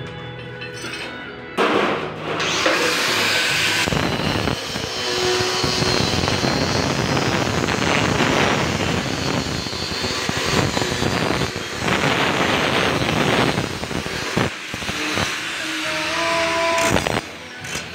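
Handheld angle grinder cutting steel tubing: a loud, harsh grinding noise that starts about two seconds in and runs steadily until near the end, swelling and dipping as the disc bites.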